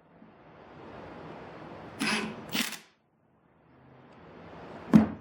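Cordless impact drivers running against each other in short, sharp bursts of hammering, twice about two seconds in and once more with a sharp click near the end, broken up by abrupt silences.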